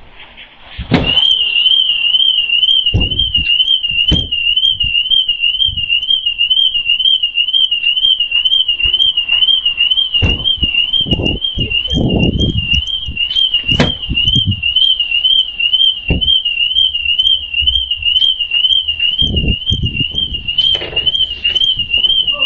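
Car alarm warbling up and down at about two cycles a second, starting about a second in just after a loud knock, set off by a car being driven into a parked car. Several dull thuds and knocks sound beneath it.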